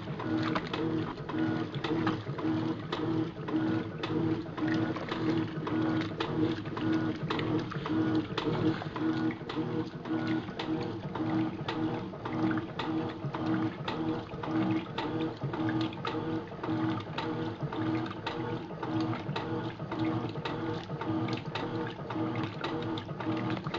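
Electrolux top-loading washing machine running its wash cycle: a steady rhythmic mechanical churn that pulses again and again, with rapid clicking and rattling throughout. The machine runs on bearings the owner describes as blown.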